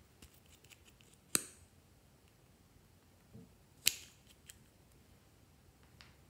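Two sharp plastic clicks about two and a half seconds apart, made by the cap of a small plastic Hello Kitty tube being worked by hand, with a few lighter ticks of handling between them.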